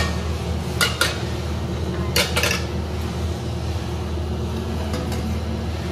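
A metal cooking utensil clinking against a pan a few times while sabzi is being cooked, in two short clusters about a second in and just after two seconds, over a steady low hum.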